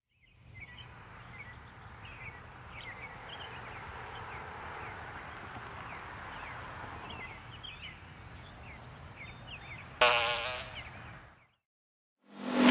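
Quiet outdoor ambience with scattered bird chirps. About ten seconds in, a fly buzzes loudly close by and fades away over about a second, then the sound cuts to silence.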